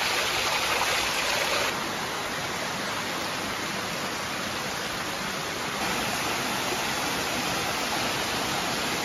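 Water rushing over rocks in a small waterfall and shallow stream, a steady hiss that drops abruptly about two seconds in and rises again a little past the middle.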